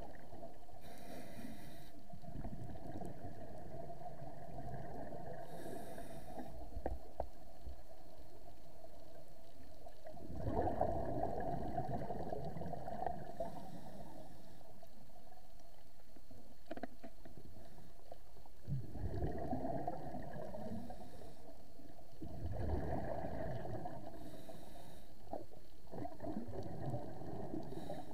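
Scuba diver breathing through a regulator underwater: bursts of exhaled bubbles every few seconds, with short hisses of inhalation between them.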